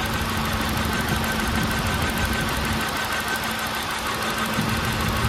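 2003 Chevrolet Corsa 1.8 four-cylinder engine idling steadily while misfiring on cylinder 1, whose fuel injector gets no pulse.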